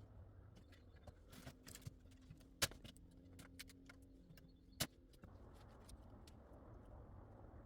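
Scattered light clicks and knocks, with two sharp knocks about two seconds apart in the middle, over a faint steady hum.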